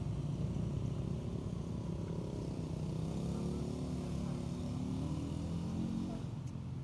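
Steady low rumble of a vehicle engine, with a hum that rises and falls in pitch through the middle as it passes.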